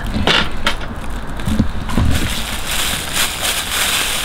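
Thin plastic takeout bags rustling and crinkling as they are handled and opened, in a run of short crackles.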